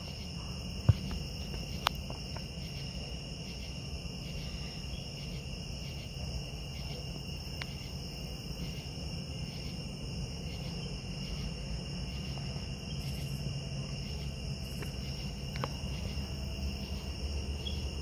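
A steady chorus of night insects: several high, shrill trilling tones that pulse at an even rhythm, over a low rumble. Two small clicks come in the first two seconds.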